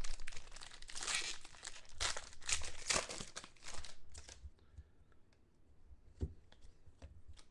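A trading-card pack's foil wrapper crinkling and tearing as it is pulled open. After about four seconds it goes quieter, with a few light clicks and taps as the cards are handled.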